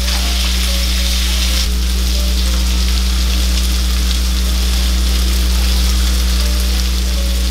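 Seasoned chicken strips frying in melted butter and olive oil in a skillet: a steady sizzle over a low hum.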